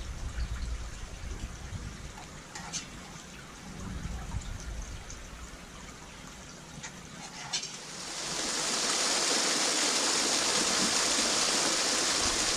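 Stream water running over rocks, with a few light clicks. About eight seconds in, the louder steady rush of a small waterfall spilling over a rock ledge takes over.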